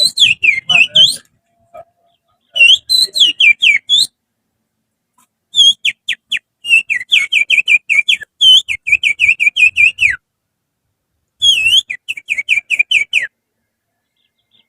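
Finger whistling that imitates the song of an oriental magpie-robin (kacer). It comes in four phrases of quick, chirping notes that slide up and down, with short pauses between; the third phrase is the longest.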